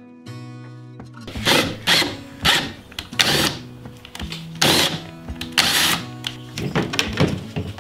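Background music with steady held chords, over a cordless drill boring into a wooden board in several short, irregular bursts.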